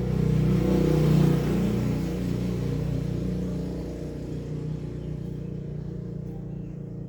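A motor vehicle engine running with a steady low hum, growing louder to a peak about a second in and then slowly fading away.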